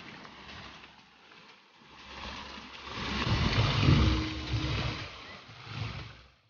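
Ornamental fountain's water jets spraying and splashing into the stone basin, a steady hiss that swells louder about two seconds in, with a low rumble underneath at its loudest.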